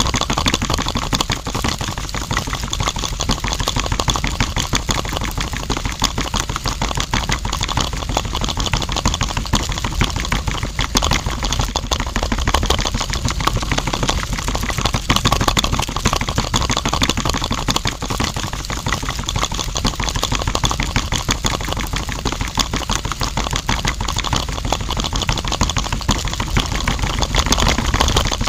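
Small electric motor of a miniature DIY flour mill running steadily, with a fast, dense mechanical rattle that does not let up.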